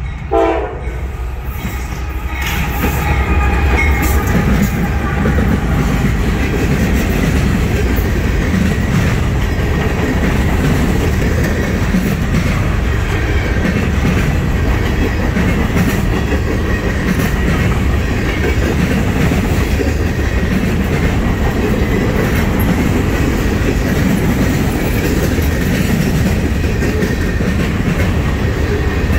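Freight train passing close by: a short loud horn note about half a second in, then the diesel locomotives go by and a long string of loaded trash-container cars rolls past with a steady rumble and rattling wheel noise.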